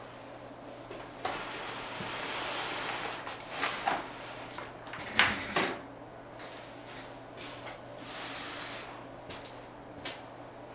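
Rummaging through storage: a drawer or cupboard opening and closing, things moved about with rustling, and a few sharp knocks and clunks, the loudest a pair about five seconds in.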